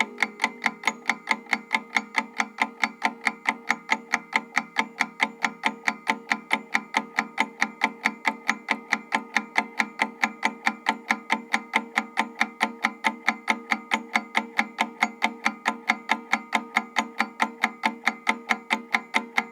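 Analog clock ticking steadily and evenly, about four ticks a second, with a steady ringing tone under the ticks.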